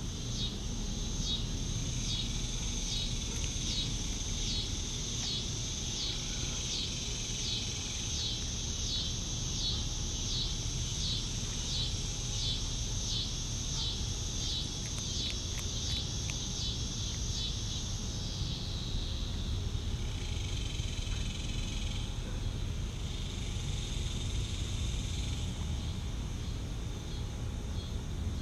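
An insect chirping outdoors in a steady, even rhythm of about one and a half pulses a second, over a continuous high-pitched insect buzz. The chirping stops about two-thirds of the way through, and a low background rumble runs beneath.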